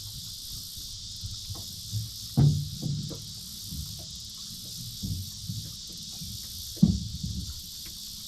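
A submerged tree knocking and rumbling against the bottom of a boat in river current, in low thumps, the loudest about two and a half seconds and seven seconds in. Insects drone steadily throughout.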